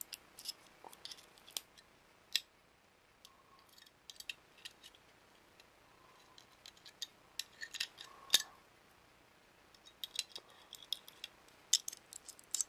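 Irregular sharp clicks and small metallic snaps of pliers working a thin metal shield cover loose from a circuit board. They come sparsely at first and bunch up about eight seconds in and again near the end.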